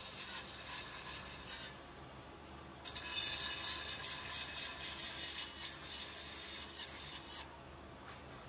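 A steel bicycle rim being ground against a spinning abrasive wheel on a motor spindle, a hissing metal-on-wheel scrape. The scrape stops briefly twice, about two seconds in and near the end, while the rim is repositioned, leaving only the motor's low hum.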